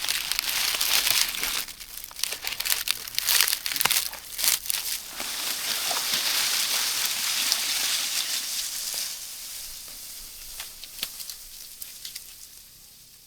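Dry coconut palm leaves rustling, crinkling and crackling, dense and loudest in the first half, then thinning out towards the end.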